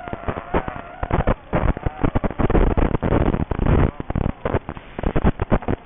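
Racing quadcopter's brushless motors and propellers at speed, heard through a small onboard microphone: choppy, crackling noise in rapid irregular bursts, like wind buffeting, with a faint wavering whine in the first second or so.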